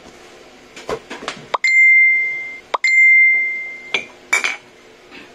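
Two bright bell-like dings about a second apart, each at the same pitch and ringing out for about a second, with a few short knocks around them.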